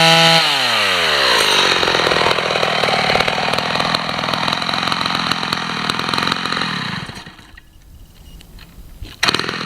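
Vintage Homelite 5-30 two-stroke chainsaw, run without a chain, revving high, then dropping back to a rough, uneven idle that dies out about seven seconds in. About two seconds later it fires again loudly. The saw is known to need carburetor work.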